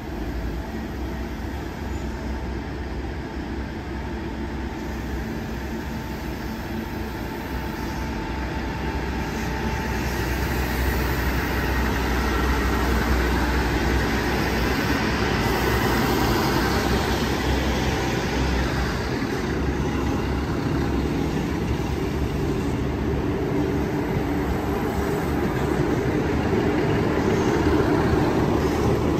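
NSW TrainLink Xplorer diesel railcar set arriving at the platform, its diesel engines running with a steady low hum. It grows louder over a few seconds, from about eight seconds in, as the cars draw alongside.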